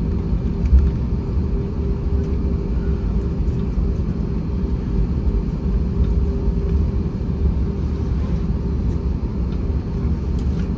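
Airbus A321-231's IAE V2500 turbofan engines running steadily, heard from inside the passenger cabin: a low rumble with a steady hum and no change in pitch.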